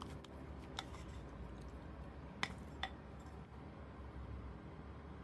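Faint handling sounds of a square metal baking pan holding freshly poured cocoa sponge batter, with a few light clicks.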